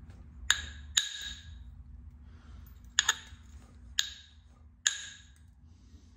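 Five sharp, ringing clicks of a knapping tool stroked against the edge of a heat-treated chert blade, light work dressing the platform near the tip.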